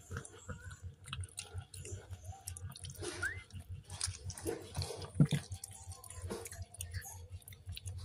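Mother cat chewing and licking at the wet afterbirth of her newborn kitten: irregular wet smacking and clicking, loudest a little after five seconds in.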